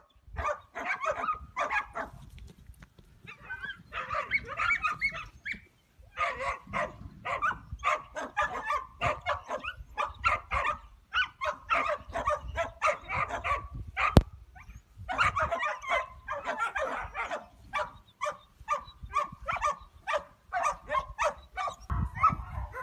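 A dog barking rapidly and repeatedly, several short barks a second in long runs with brief pauses. There is one sharp knock a little past the middle.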